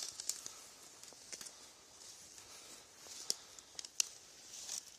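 Footsteps shuffling through dry fallen leaves: faint crackles and a few sharp ticks over a steady hiss.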